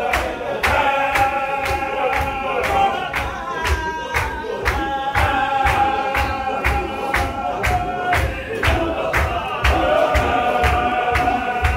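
Qadiri Sufi zikr: a large group of men chanting in unison on long held notes, over steady rhythmic hand-clapping and stamping feet at about three beats a second.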